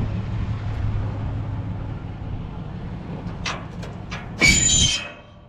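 Vehicle engine running steadily, then about four and a half seconds in a loud, ringing metal-and-plastic crash lasting about half a second as a piece of scrap is dropped or thrown.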